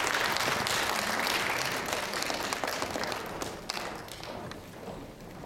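Audience applauding, dying away over the last couple of seconds, with a few knocks on the stage as it fades.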